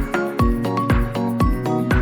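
Background music with a steady beat: a kick drum about twice a second under plucked or keyed melodic notes.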